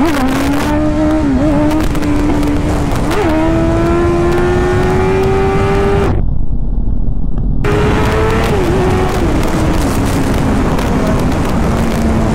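Inline-four sport motorcycle engine running at steady road-cruising revs, with a few brief dips in pitch and a slow rise in revs through the middle. For about a second and a half past the middle the sound goes dull, then the engine note comes back.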